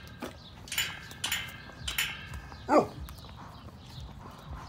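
A Doberman gives one short bark with a falling pitch a little past halfway, after a few faint short noises.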